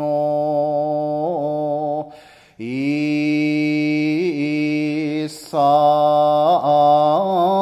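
Solo male Buddhist monk chanting Shingon shōmyō of the Buzan school, a hyōbyaku. He holds long, level notes, ornamented with the small half-step wavering (yuri) of the chūkyoku style, and pauses briefly for breath twice, about two and five seconds in.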